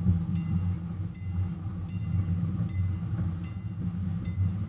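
Miniature railway locomotive running as the train rolls slowly, its engine a steady low hum, with a bell ringing a little more than once a second.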